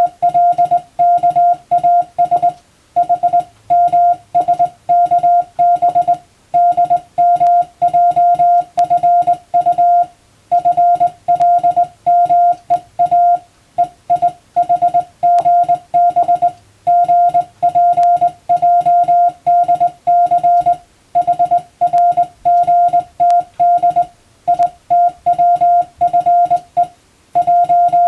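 Morse code (CW) tone keyed in dots and dashes, sending telegram practice text. It is one steady pitch switched on and off at a brisk, even pace, with brief pauses between words.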